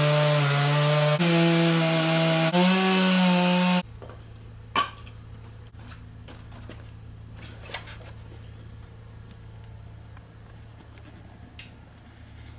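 Stihl MS 661 chainsaw running at full throttle as it rips through a walnut log in an Alaskan chainsaw mill, its engine note stepping up in pitch twice at jump cuts. It cuts off abruptly a little under four seconds in, leaving a quiet low hum with a few sharp clicks.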